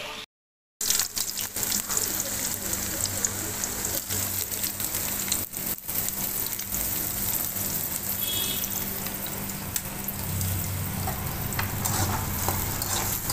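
Chopped onions and green chillies sizzling in hot oil in a kadai: a steady frying hiss with small crackles, which cuts out briefly just after the start.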